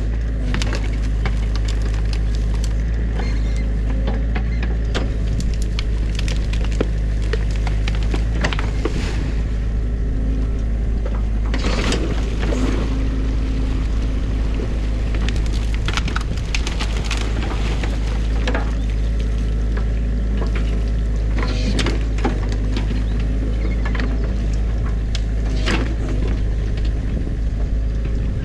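New Holland mini excavator's diesel engine running steadily under hydraulic load. Irregular cracks and knocks come on top as the bucket breaks sticks out of a beaver dam, along with splashing as it churns the stream water.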